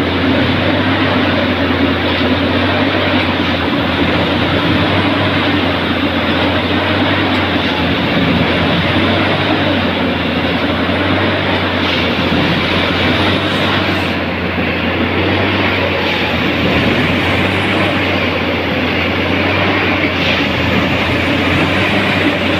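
Steady running of a Unimat split-head track tamping machine's diesel engine: a low hum under a constant wide rumble.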